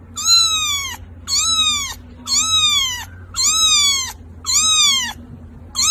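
A very young ginger kitten mewing: five high-pitched mews, about one a second, each rising slightly then falling in pitch.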